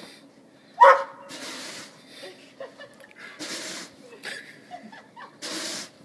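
Snow shovel scraping snow off a deck in repeated strokes, each a short hissing scrape about two seconds apart, with a single short loud cry about a second in.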